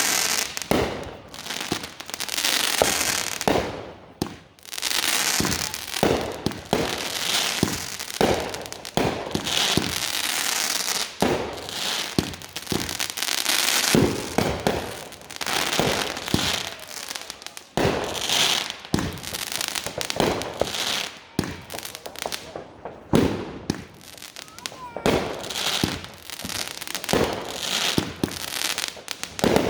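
Fireworks going off almost without pause: repeated sharp bangs mixed with long stretches of crackling.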